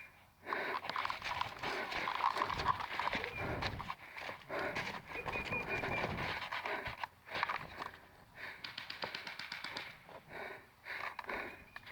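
A person breathing hard and panting close to the microphone, loudest over the first six seconds and then easing off. About nine seconds in comes a brief run of rapid, evenly spaced clicks.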